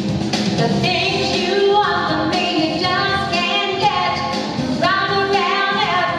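A woman singing into a handheld microphone through a PA, with long held notes that waver in vibrato.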